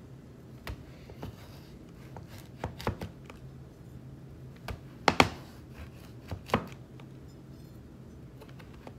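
Kitchen knife slicing through a raw sweet potato, each cut ending in a knock on the cutting board; the cuts come singly or in quick pairs at uneven intervals, loudest a little past the middle.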